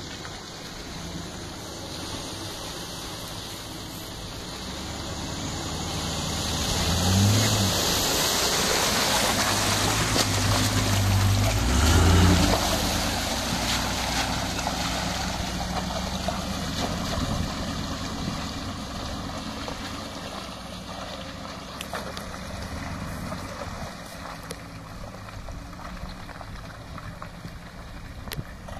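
Classic Range Rover engine driving through water-filled muddy ruts, with water and mud splashing. It grows louder as the vehicle comes close, is loudest for several seconds as it passes, then fades as it drives away.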